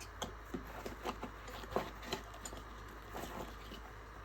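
Hands handling a portable jump starter and tyre inflator unit and its packaging during unboxing: scattered light clicks and taps at irregular intervals.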